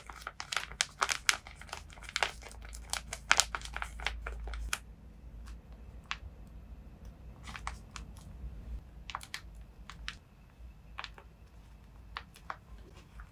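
Tape-covered paper squishy being squeezed and handled, its glossy plastic skin crinkling densely for the first five seconds or so, then giving scattered single crackles as it is pressed.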